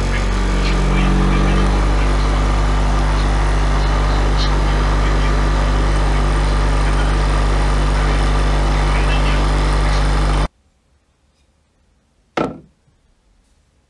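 Einhell bench grinder running with a buffing wheel, a steel hammer head held against it at the start; a steady motor hum with grinding noise. The sound cuts off suddenly about ten and a half seconds in, and a single sharp knock follows near the end.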